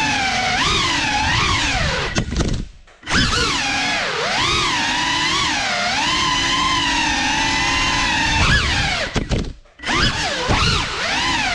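GEPRC CineLog35 3.5-inch cinewhoop drone's motors whining, the pitch rising and falling constantly with throttle. The whine drops out briefly twice, about three seconds in and again near ten seconds, then comes back.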